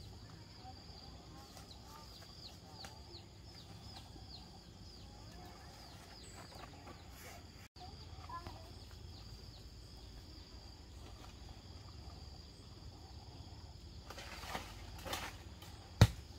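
Rural outdoor ambience: quick, high, falling chirps, several a second, fade out after about seven seconds over a low steady rumble. A single sharp knock comes near the end.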